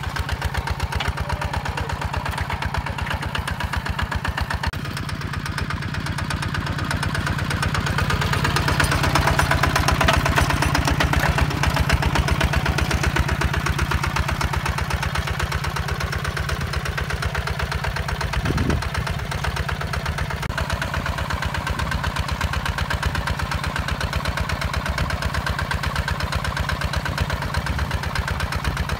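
Single-cylinder diesel engine of a HINOTA HG Gold 155 DI walking tractor chugging steadily under load while it pulls a plough through dry soil, swelling a little louder for a few seconds about a third of the way in.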